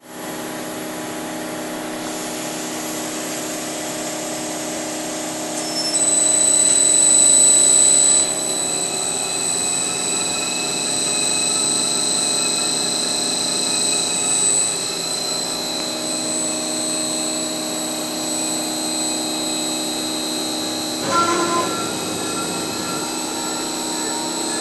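CNC router spindle face-milling an aluminium block: a steady machine whine made of several tones. About six seconds in a high-pitched cutting whine joins and is loudest for the next two seconds, then carries on. A short shift in the tones comes a few seconds before the end.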